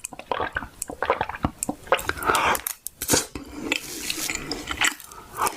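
Close-up eating sounds: many short wet clicks and smacks from chewing, with utensils tapping a dish.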